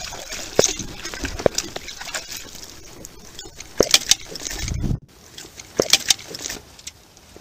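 Water splashing and sloshing as a fish thrashes in a landing net at the surface, with sharp knocks and clatter from the net and gear against a small rowing boat.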